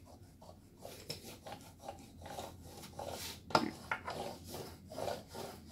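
Hand brayer rolling back and forth over fabric, pressing it onto a sticky strong-grip cutting mat: soft repeated rubbing strokes, with a sharper knock about three and a half seconds in.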